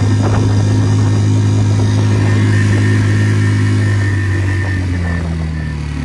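Tohatsu 3.5 HP outboard motor running steadily at high throttle under way, with water rushing past the inflatable's hull. In the last two seconds the engine note changes pitch and fades as it slows.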